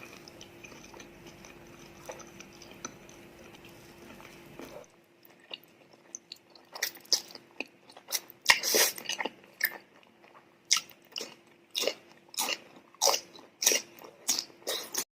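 Close-miked ASMR eating: crisp crunching bites and chewing, sharp crunches coming irregularly a couple of times a second from about five seconds in, after a few seconds of faint background noise. The sound cuts off abruptly near the end.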